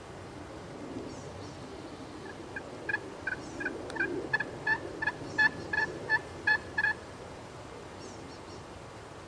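A series of a dozen or so turkey yelps, evenly spaced at about three a second and growing louder, then stopping. Songbirds chirp faintly.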